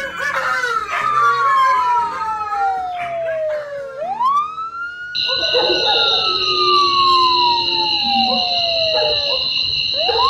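Emergency vehicle siren wailing, each cycle a quick rise then a long slow fall and repeating about every six seconds, with dogs howling along to it. About halfway through a steady high ringing tone joins in.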